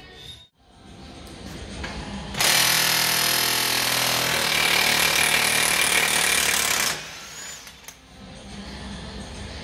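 Impact wrench running in one continuous burst of about four and a half seconds, hammering on a bolt at the front wheel hub.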